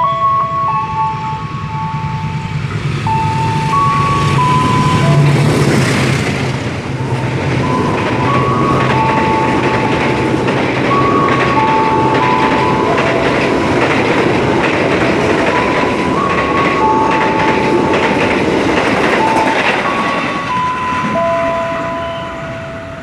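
Diesel-hauled KA Kertajaya passenger train running through the station without stopping. The locomotive's engine drone comes first, then the coaches' wheels rush past for about fifteen seconds and fade near the end. A simple tune of clear single notes plays over it throughout.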